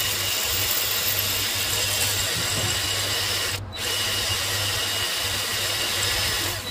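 Power drill running steadily as it drills out a broken exhaust manifold bolt, enlarging the hole with a 5.5 mm bit ready for an extractor. It stops for a moment about halfway through, then runs on.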